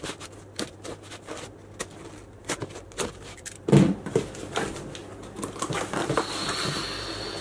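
A cardboard shipping box being opened: a blade scratching and clicking along packing tape, a single thump a little past halfway, then the cardboard flaps rustling as they are pulled open.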